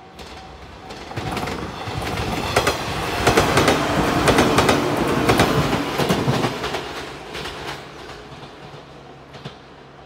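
A JR 115 series electric train passes close at speed. It builds to a loud rumble with rapid wheel clacks over the rail joints about two to six seconds in, then fades away. A level-crossing warning bell pulses at the very start before the train drowns it out.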